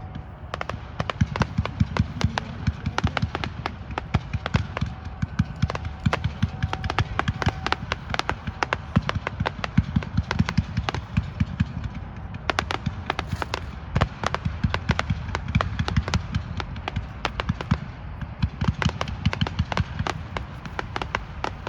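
Cosmic Crossfire consumer aerial firework firing: a rapid, nearly continuous barrage of shots and crackling bursts over a low rumble, easing briefly about halfway through before picking up again.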